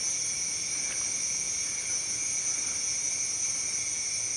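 Jungle insects droning steadily at several high pitches at once, an unbroken chorus typical of a tropical rainforest.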